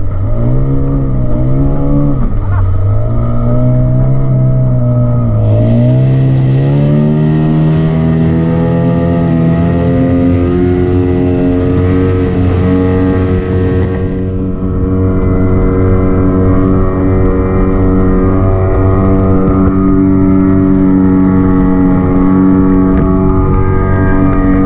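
Yamaha Enduro 40 hp two-stroke outboard running a small boat at speed. For the first five seconds its pitch dips and rises again and again, then it climbs and holds a steady high note. A rushing hiss joins for several seconds in the middle.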